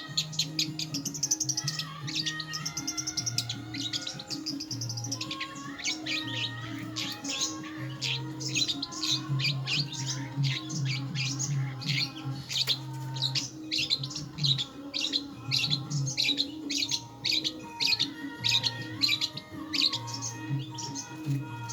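Long-tailed shrike (cendet) song: a dense run of rapid, sharp chirps and short trills, over low sustained musical notes.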